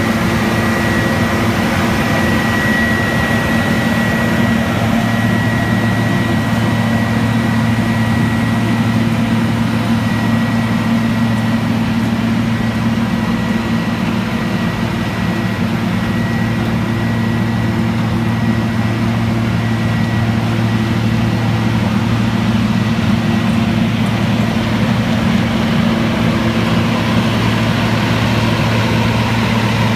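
Vögele Super 1900 asphalt paver's diesel engine running steadily, with a thin high whine over it that is strongest in the first ten seconds or so and then fades.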